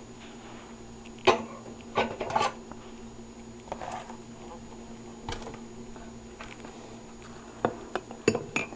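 Cup and dishware being handled while frothed milk is checked: scattered light clinks and knocks, several seconds apart, over a steady low hum.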